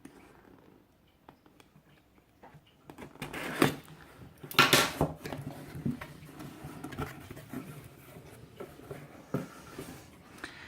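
Cardboard mystery box being opened and its contents handled: two loud rustling swishes of packaging about three and a half and five seconds in, then small knocks and taps as items are moved about.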